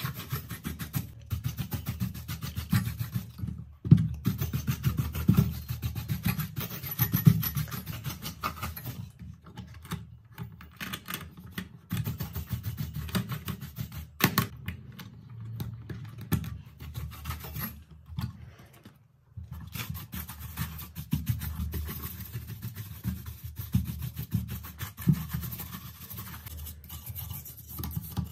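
Brush bristles scrubbing dust off a computer motherboard: rapid, scratchy back-and-forth rubbing, with a short pause about two-thirds of the way through.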